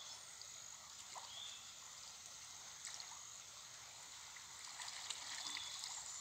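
Water trickling and splashing faintly as a wet fishing net is hauled up out of a shallow pool, with a few small splashes about five seconds in. A steady high insect drone runs underneath.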